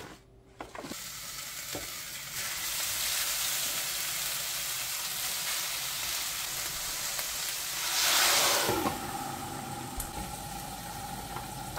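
Bracken fern stems (gosari) sizzling in a hot stainless frying pan as they are stirred. The hiss starts about a second in and flares up loudly for a moment around eight seconds in. A faint steady tone runs under the sizzle near the end.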